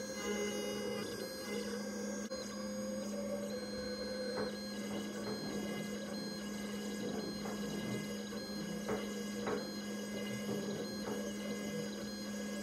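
PocketNC V2 desktop five-axis CNC mill running as its spindle and end mill machine a blue workpiece. A steady hum carries on throughout, with short high tones from the axis motors starting and stopping over and over. A few sharp ticks come about four seconds in and again around nine seconds.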